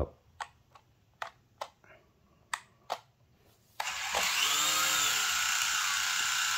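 A string of about eight sharp, uneven clicks, then, about four seconds in, the Eachine E520S quadcopter's motors start suddenly and its propellers spin on at a steady high whine.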